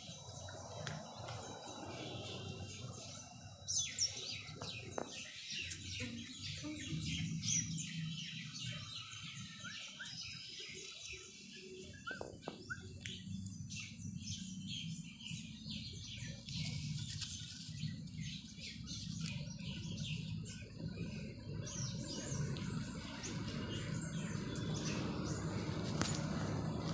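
Small birds chirping busily, many short high calls that start a few seconds in and continue throughout, over a steady low background rumble.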